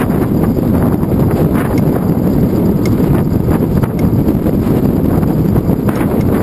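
Wind buffeting the microphone of a handlebar-mounted GoPro Hero 2 on a moving bicycle: a steady low rumble, with a few light clicks scattered through it.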